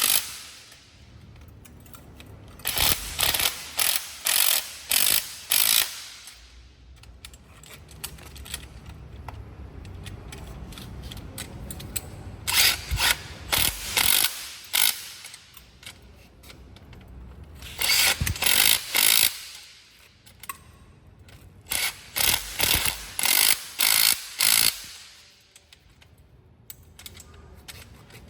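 Makita DTW300 18V cordless impact wrench run in short trigger bursts, its hammer mechanism rattling. There are four groups of several quick bursts each, with quieter handling noise between them.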